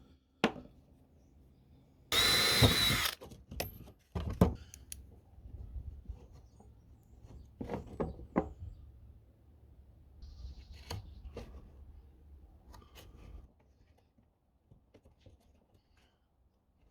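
A small power tool runs in one burst of about a second with a wavering whine, followed by scattered clicks, knocks and handling noises of leatherwork.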